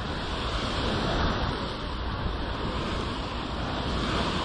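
Steady rushing noise.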